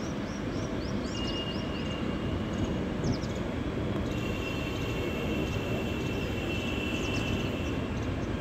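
Rumble of a train rolling slowly through a station, with a thin, steady high squeal that comes in twice. A few short chirps sound above it.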